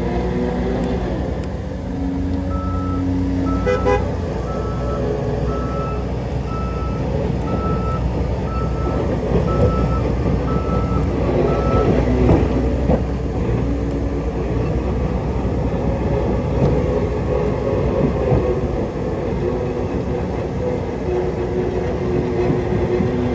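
Heavy-equipment diesel engines running steadily, with a reversing alarm beeping evenly, a little more than once a second, for about nine seconds. There is a short toot about four seconds in.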